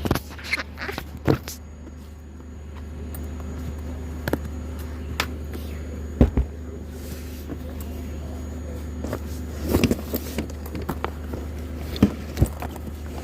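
A car running with a steady low hum, with scattered knocks and clunks of things being handled, the loudest about six seconds in and again near the end.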